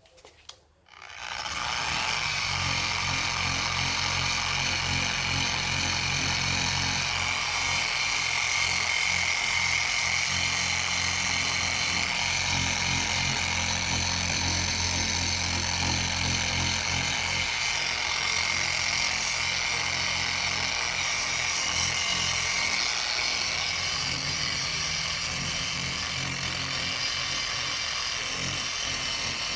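Power sander with a sanding disc on an interface pad, sanding a plastic headlight lens; it starts up about a second and a half in and then runs steadily.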